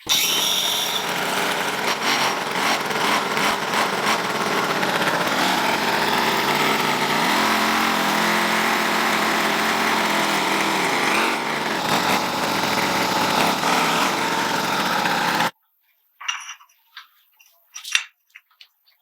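A small engine or power tool running loudly and steadily for most of the stretch, then cutting off suddenly; a few short, scattered knocks follow.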